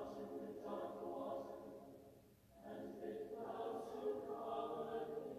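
Faint choral singing in long, held notes, with a short break about two and a half seconds in before the next phrase.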